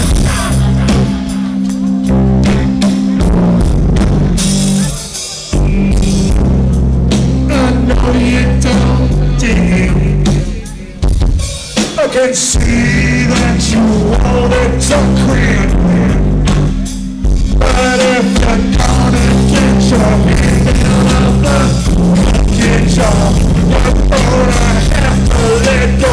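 Rock band playing live at loud volume: drum kit, bass and electric guitar, heard from within the crowd. The band drops out for a moment three times, about 5, 11 and 17 seconds in, then comes straight back in.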